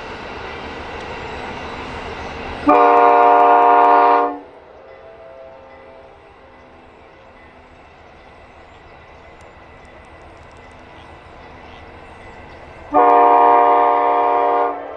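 Amtrak San Joaquin passenger train rolling past with a steady rumble, then sounding its horn in two long blasts about ten seconds apart.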